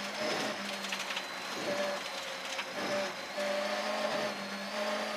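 Rally car driving at speed on a forest stage, heard from inside the cabin: engine drone and road noise under a steady hum.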